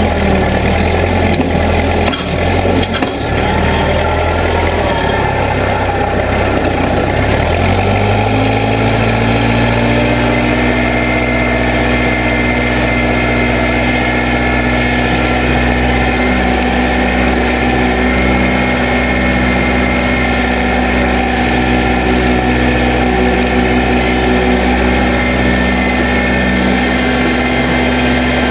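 Case 580B backhoe engine running, with a few knocks in the first seconds; about eight seconds in the engine speeds up and then runs steadily at higher revs.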